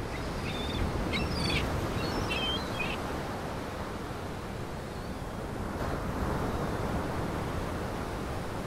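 Steady rush of small waves washing against a rock breakwater, with a few short bird calls in the first three seconds.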